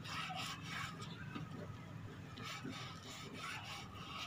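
A cloth soaked in wet red clay slurry rubbed over the outside of a terracotta flower pot: faint, repeated rubbing strokes as the clay coat is spread on.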